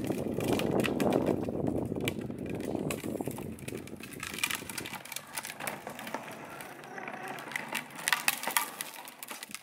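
Hard plastic wheels of a child's foot-pushed ride-on toy motorbike rolling over rough asphalt: a gritty rumble that eases about halfway through, followed by scattered crackles and clicks.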